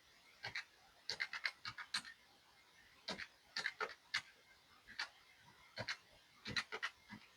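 Felt-tip marker strokes on paper: short, quick scratches in little clusters, a few strokes at a time with pauses between, as boxes on a tracker sheet are marked off.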